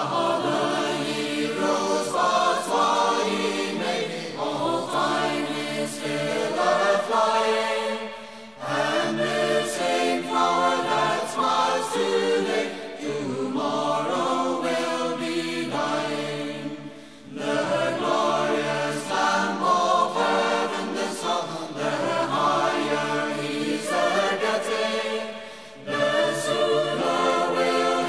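Background music with singing voices, choir-like, in long phrases with short pauses between them.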